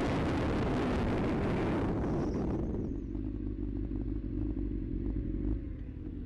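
Motorcycle engine running under heavy wind and road rush, which falls away about two and a half seconds in as the bike slows, leaving a steady low engine hum.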